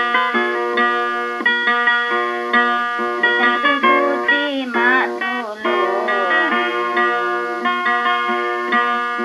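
Background music led by a plucked guitar playing a melody over held notes, with a passage of sliding, bending notes about four to five seconds in.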